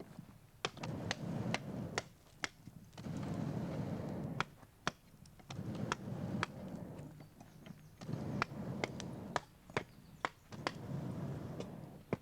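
Irregular sharp knocks and strikes, two or three a second, as the clay wall of a prehistoric-style iron-smelting furnace is broken open, with recurring spells of rough, rushing noise between them.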